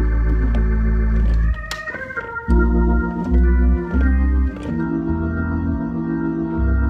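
Organ playing held gospel chords over deep bass notes, with the chords changing every second or so.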